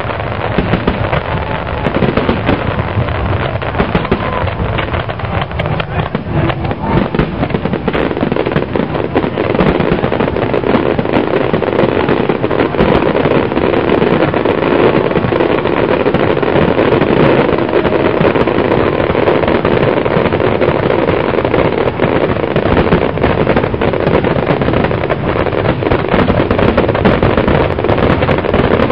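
Dense barrage of aerial fireworks shells bursting, the bangs and crackling running together into a continuous din that grows a little louder about ten seconds in.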